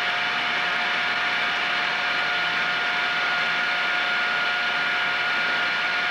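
CUTTERMASTER end mill sharpener's grinding motor running steadily with the wheel spinning free, not yet touching the cutter: a steady whine over an even hiss.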